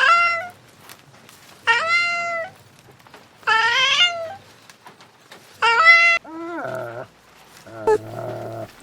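A cat meowing over and over, about six separate calls spaced a second or two apart; the last two are lower-pitched.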